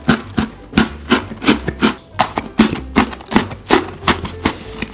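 Pepero chocolate-coated biscuit sticks crunching as they are bitten in quick succession, a sharp crunch about three times a second.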